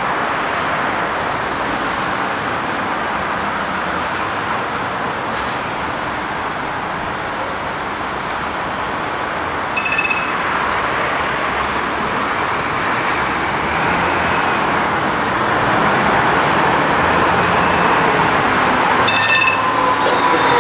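Steady noise of city traffic and vehicles, with two brief high-pitched tones, one about halfway through and one near the end.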